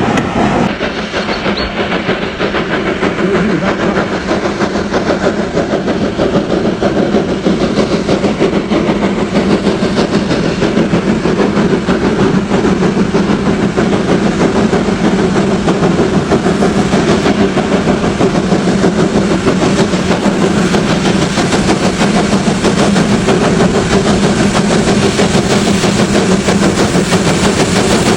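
A train running along the rails: a loud, steady, unbroken rumble with a constant low hum.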